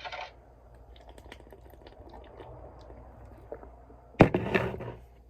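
A man drinking beer in small quiet sips, with faint clicks and handling noises. About four seconds in there is a sharp knock, then a short louder noisy sound.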